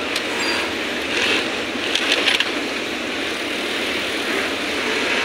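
Steady mechanical running noise of a garment sewing workshop, with a brief clatter of clicks about two seconds in.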